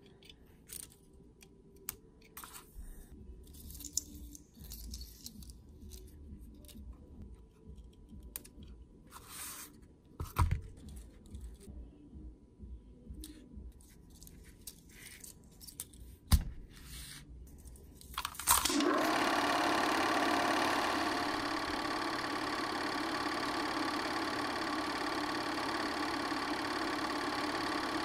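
Small clicks, taps and rustles of hands handling a double-8mm film strip, a small film reel and scissors, with sharper knocks about ten and sixteen seconds in. About eighteen seconds in, a film projector starts and runs steadily with a mechanical whir.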